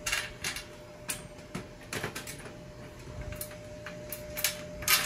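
Irregular light clicks and knocks as a plastic mirror frame is handled and fitted against the screw bracket of a metal mirror stand, the sharpest knock near the end. A steady faint hum runs underneath.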